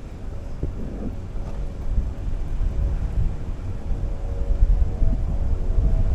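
Wind buffeting the microphone: an uneven low rumble that grows louder toward the end.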